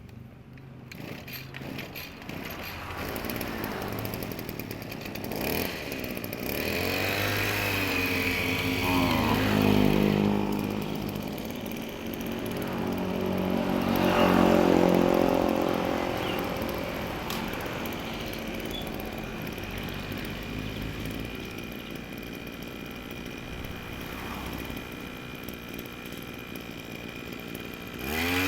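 Small two-stroke engine of a Tasco backpack sprayer running, revved up and back down, loudest about a third and halfway in.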